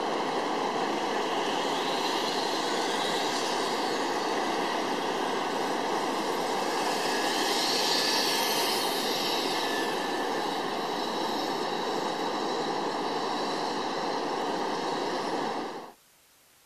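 Zip-line trolley running along the steel cable as a rider rides in, a steady rushing whir that swells as the rider passes overhead about halfway through. It cuts off suddenly near the end.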